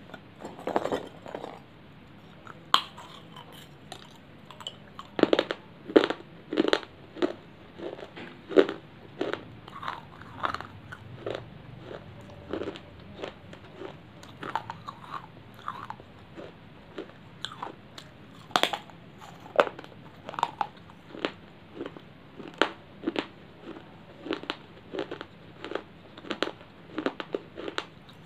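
Pieces of baked clay being bitten and chewed close to the mouth: an irregular run of sharp crunches and cracks, about one or two a second, with softer chewing between.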